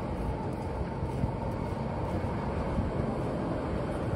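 Electric rack-railway train running slowly into a station: a steady rumble with a faint high whine.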